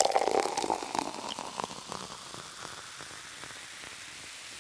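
A crackling, fizzing noise, dense at first, that dies down over about two seconds into a steady hiss.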